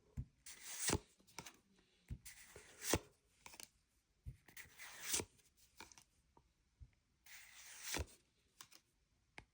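Pokémon trading cards being slid one at a time from the front of a freshly opened pack's stack to the back, each a papery swish ending in a sharp snap, the loudest about every two seconds.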